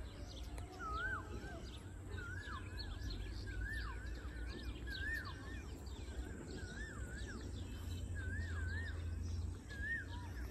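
Birds calling: one bird repeats a whistled, wavering phrase that drops away at the end, over and over, with fainter chirps of other birds and a steady low rumble underneath.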